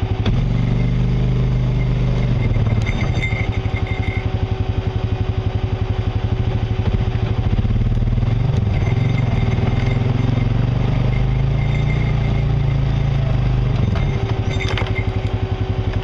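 An off-road vehicle's engine runs steadily at low speed as it rolls down a rocky dirt trail. A constant thin whine sits above the engine's pulse.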